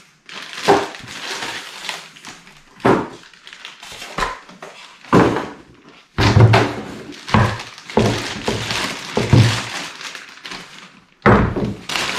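Unpacking a cordless chainsaw: styrofoam packing being pulled out and set down, and a plastic bag rustling as it is worked off the saw, with repeated dull thunks at irregular intervals.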